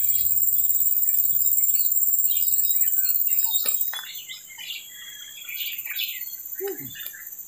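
Wild birds chirping and twittering in quick short calls over a steady high-pitched insect drone. The overall sound gets noticeably quieter about four seconds in.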